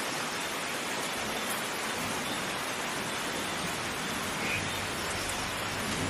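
Heavy rain falling steadily, an even dense hiss; a low rumble of thunder starts to build near the end.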